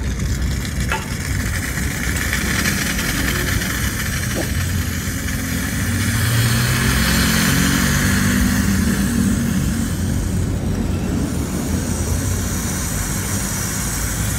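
An engine running steadily. Its hum and a hiss above it rise in the middle and ease back down after.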